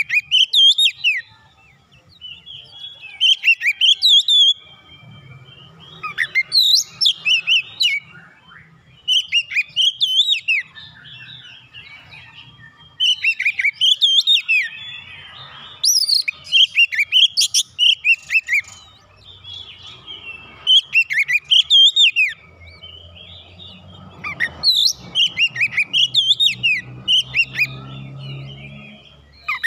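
Oriental magpie-robin singing loud phrases of rapid, varied whistles and chirps, each about a second or two long and repeated every couple of seconds.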